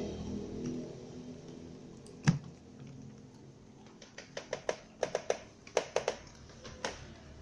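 Several cats crunching dry kibble from a plastic tray. There is one sharp knock a couple of seconds in, then a quick, irregular run of crisp crunching clicks over the last few seconds.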